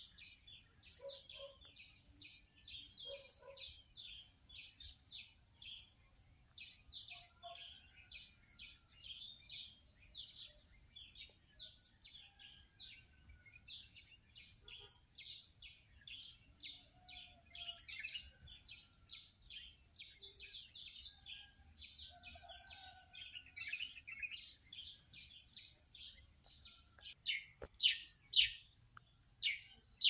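A chorus of small birds chirping quickly and without pause, many short high notes a second over a steady high hiss. A few louder, sharper calls come near the end.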